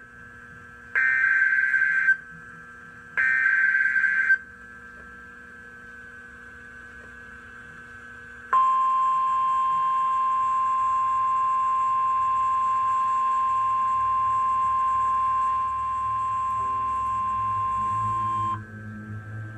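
NOAA Weather Radio Emergency Alert System activation for a severe thunderstorm warning. Two short, harsh bursts of the SAME digital data header, each about a second long and two seconds apart, carry the coded alert. After a pause of about four seconds, the 1050 Hz warning alarm tone sounds as one steady beep for about ten seconds.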